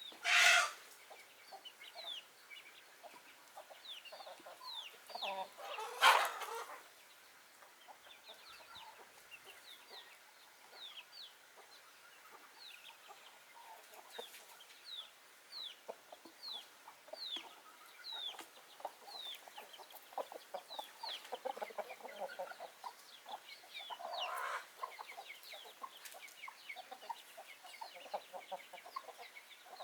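Backyard chickens clucking, with many short, high, falling chirps throughout and two loud brief calls, one right at the start and another about six seconds in.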